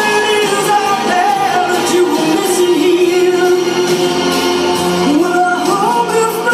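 Loud music with a singing voice: the voice holds one long note for about three seconds, then climbs to a higher note near the end.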